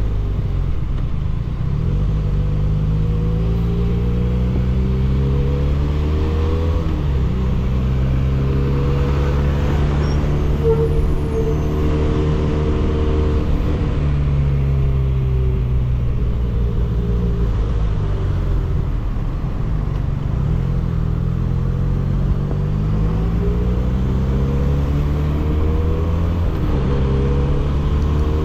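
300 cc motorcycle engine running through an aftermarket 302s exhaust under riding load, its revs climbing and dropping several times as the bike accelerates, shifts and eases off.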